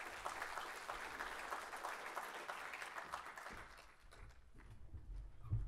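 Audience applauding, dying away about three and a half seconds in, followed by a few low thumps near the end.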